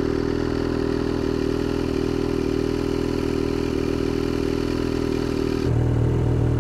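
Snowmobile engine idling steadily, its note changing abruptly near the end.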